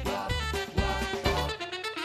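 Background music with a bass line and a beat.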